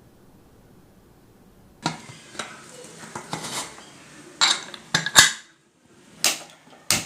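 Metal pots and utensils clattering and clinking, a run of sharp knocks starting about two seconds in, as cookware is handled.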